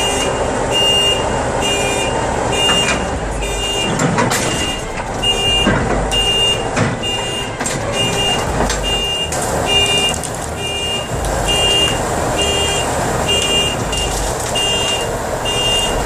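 Reversing alarm beeping steadily, about once a second, over a bulldozer's diesel engine running as it backs off a trailer. A few metallic clanks and squeals come about four to seven seconds in.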